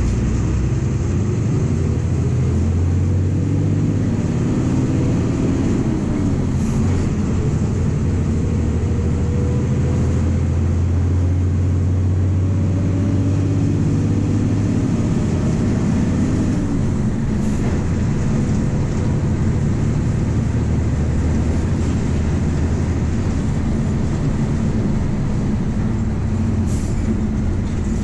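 MWM 6.12 TCE six-cylinder turbodiesel of a VW 17.230 EOD bus running under way, a loud steady low drone whose pitch rises and falls a little as the bus pulls, heard from inside the bus. Three short faint high hisses come through at spaced intervals.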